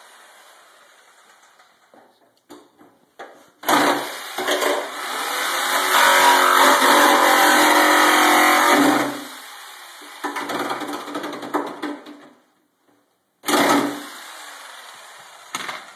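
Handheld power tool motor running in bursts on the motorcycle engine being torn down. The longest burst spins up, holds for several seconds and winds down, with scattered knocks and rattles between bursts.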